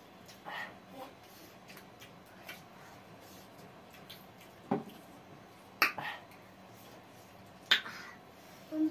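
Eating sounds: scattered sharp lip smacks and mouth clicks from people chewing food eaten by hand, the loudest two about six and eight seconds in.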